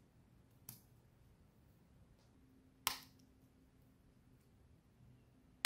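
Small plastic clicks as the tiny latches of a Braun Series 3 shaver's vibrator housing are pried with a plastic pry tool: a faint click under a second in, a sharper snap about halfway, and another near the end.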